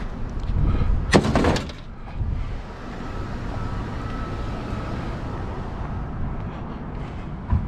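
A short clatter about a second in, then the steady low rumble of a vehicle running.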